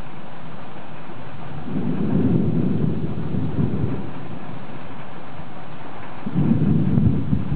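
Thunder rumbling in two low rolls, one about two seconds in lasting a couple of seconds, and a louder one near the end.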